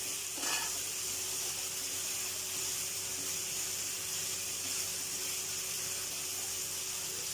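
Potato sticks frying in hot oil in a pan, a steady sizzle, with a brief knock about half a second in.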